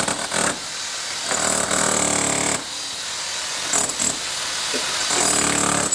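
Corded electric rotary hammer chiselling into a stone and brick garden wall, running in bursts of a second or so with short stops between.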